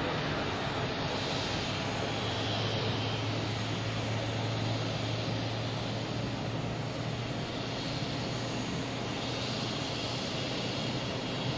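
Twin jet engines of an Airbus A330 airliner running at low power as it rolls out and turns off the runway after landing: a steady jet rumble and rush, with a low hum through the first half.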